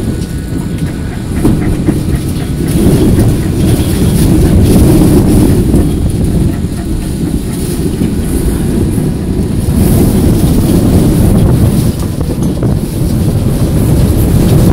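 Dust-storm winds buffeting a small travel trailer, heard from inside: a loud, low rumble that swells and eases in gusts.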